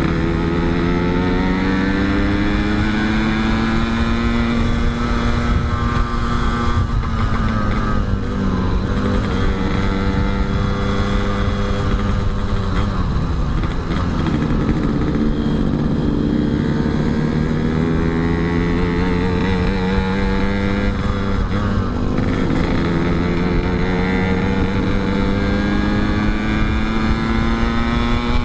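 Yamaha RX-King's 135 cc single-cylinder two-stroke engine running under way, its pitch climbing steadily, then dropping off and building again twice, about halfway through and again about three quarters through.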